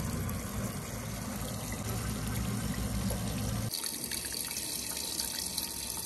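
JCB 3DX backhoe loader's diesel engine running with a steady low hum. A little under four seconds in, the sound cuts off abruptly to a steady hiss with no engine hum.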